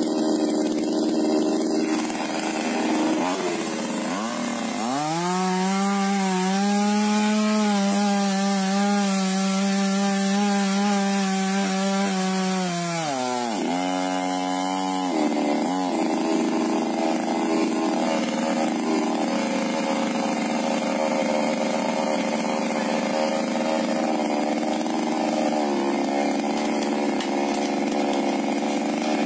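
Two-stroke petrol chainsaw cutting through a tree branch. About five seconds in it rises to full throttle and holds a steady high pitch for about eight seconds. It then drops back and runs on at a lower, steady note.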